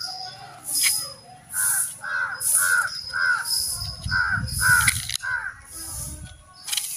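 A crow cawing over and over, a run of caws at about two a second from about a second and a half in until near the end.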